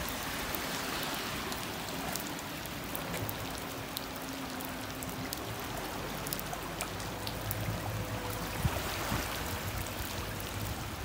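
Steady rush of rain and flowing floodwater, with scattered drips and splashes as a car wades slowly through the flooded street.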